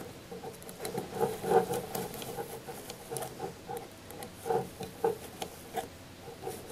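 A knitting-loom hook scraping and clicking against the loom's pegs as yarn loops are lifted over them one by one: a light, irregular patter of small ticks and rubs, a few each second.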